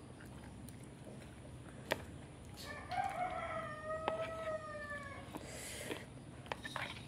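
A rooster crows once, a single long call of about two and a half seconds, beginning about three seconds in and sagging slightly in pitch toward its end. A metal spoon clicks a few times against a plastic plate.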